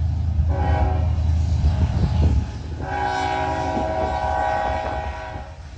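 Diesel freight locomotive's multi-chime air horn sounding two long blasts, the second longer, over the low rumble of the locomotive engines.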